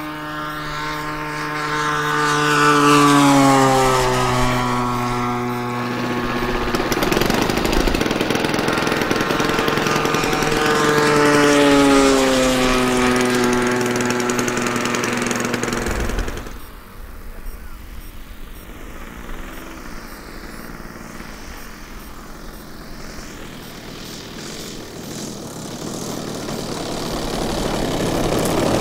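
Propeller engine of a radio-controlled aerobatic model airplane making two low passes, its pitch falling as it goes by each time. About two-thirds of the way in the throttle is cut sharply for landing. The engine then runs low and quiet, picking up again near the end as the plane rolls on the grass.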